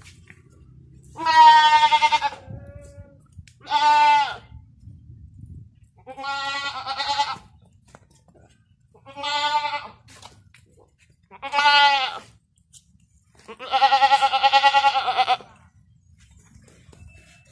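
A black-and-white goat on a rope lead bleating, about six loud calls a second or two apart, the last one the longest.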